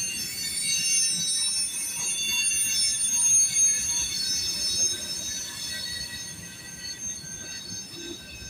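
Freight train wheels squealing on the rails, several high steady tones held together over the low rumble of the rolling cars, fading in the second half.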